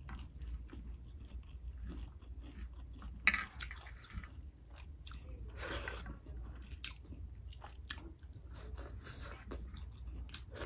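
A person chewing food with the mouth full, close to the microphone: wet smacking and chewing clicks, with a few louder noisy bursts, the loudest about a third of the way in.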